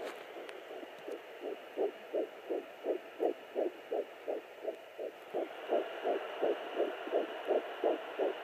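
Fetal heartbeat picked up by a Sonoline B fetal Doppler and played through its speaker: an even train of quick pulses, close to three a second (around 160 beats a minute), over a steady hiss that grows louder about halfway through.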